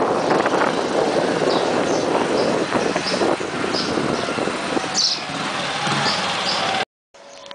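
Outdoor street ambience: a steady, loud rush of noise with short high chirps over it, cutting off abruptly near the end.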